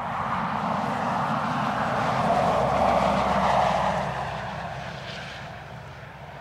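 Land Rover Defender 90 P300's 2.0-litre turbocharged four-cylinder petrol engine and tyres driving past. The sound swells to a peak about three seconds in, then fades as the vehicle pulls away.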